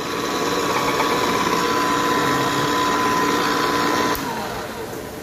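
Electric pipe threading machine running steadily as its die head works on a 2½-inch steel pipe. About four seconds in the machine sound cuts off with a click.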